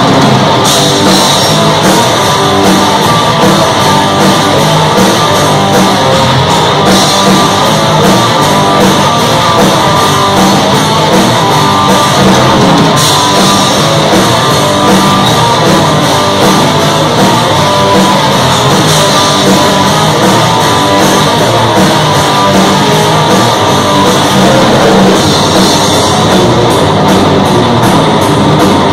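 Heavy metal band playing live and loud without a break: distorted electric guitars through Marshall amp stacks, with electric bass and a drum kit.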